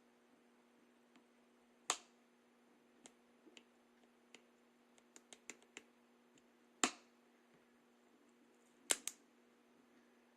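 Metal clicks of a Ruger pistol's action being worked dry, its hammer and trigger clicking. Three loud sharp clicks, the last a quick double click, with several fainter clicks between them.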